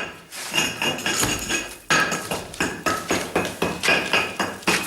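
Repeated hammer blows on metal, each a sharp clink with a brief metallic ring. They come irregularly at first, then steadily at about three a second.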